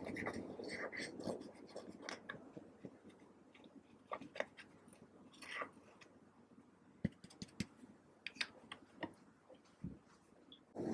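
Pressed eyeshadow being scraped and picked out of its palette pans with a small plastic spatula: irregular short scratches and light clicks with quiet gaps between them.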